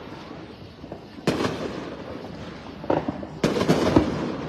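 Fireworks going off: a bang a little over a second in, then three more in quick succession in the last second and a half, each trailing off in an echo.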